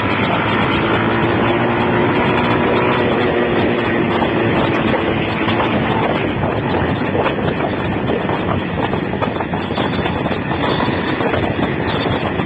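Motorcycle riding downhill at speed: the engine runs under a steady rush of wind noise on a phone microphone. An engine tone stands out more clearly during the first few seconds.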